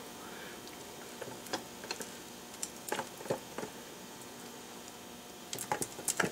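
Silicone spatula scraping creamed butter down the sides of a plastic stand-mixer bowl, with scattered soft scrapes and clicks and a small cluster of them near the end.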